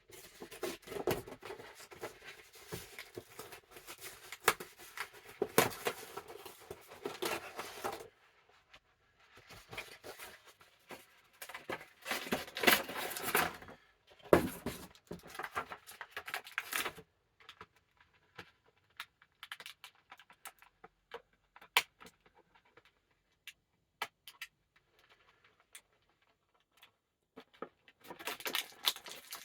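Cardboard and plastic action-figure packaging being opened by hand: bursts of rustling, crinkling and tearing for roughly the first half, then scattered small clicks and taps as the pieces are handled.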